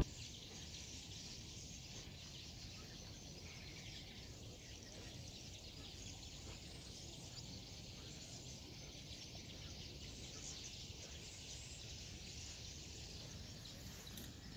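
Faint, steady hiss of background noise.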